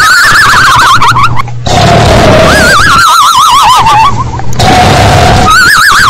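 Bass-boosted comedic cartoon snore: a low, rough rumbling snore alternates with a warbling whistle that slowly falls in pitch, the whistle about a second and a half long. The cycle repeats about every two and a half to three seconds, with a whistle at the start, around three seconds in, and again near the end.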